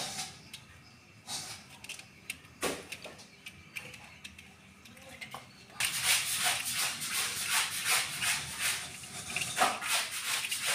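Plastic clicks and knocks of a transforming toy helicopter-robot being twisted and folded by hand, then from about six seconds in a continuous scratchy rustling.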